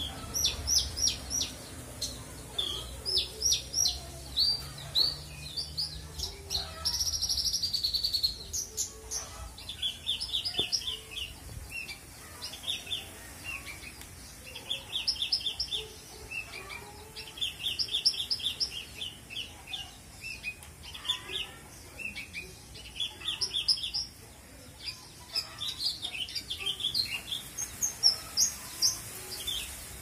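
Caged Horsfield's bush lark (branjangan) singing a full-repertoire song packed with learned imitated phrases: rapid series of high chirps and trills, each phrase repeated several times, with short pauses between phrases.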